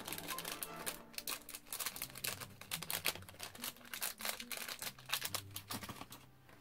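Paper and plastic packaging being handled: a busy run of small clicks and rustles that thins out near the end.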